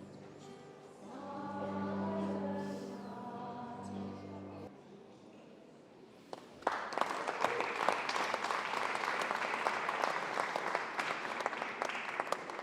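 A choir sings its last held notes, which end about five seconds in; after a short pause the audience breaks into sustained applause.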